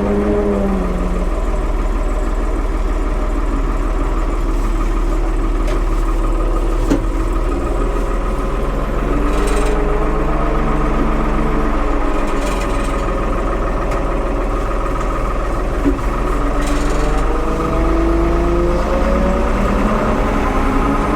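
Engine of a 1975 Ford 550 backhoe running steadily, its pitch rising and falling now and then, with a few short hisses and light knocks along the way.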